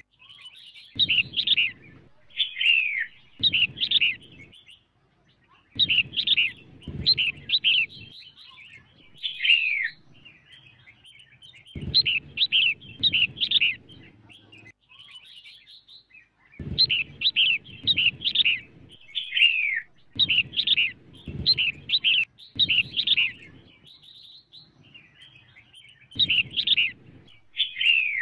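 Female red-whiskered bulbul calling: quick runs of short, bright chirps with downward slurs, in phrases of a second or two separated by short pauses. It is the kind of female call that keepers play to rouse newly caught wild males.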